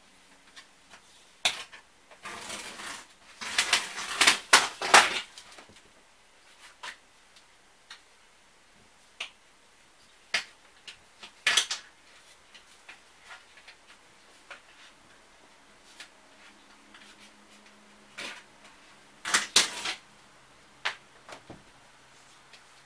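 Old linoleum being torn and scraped up off a travel trailer floor: three clusters of crackling, scraping bursts, with scattered clicks and knocks between them.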